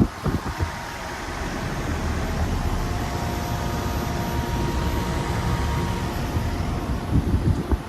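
Central air conditioner condensing unit running: a steady rush of fan air over a low compressor hum, with faint steady tones. A few low thumps sound just after the start and again near the end.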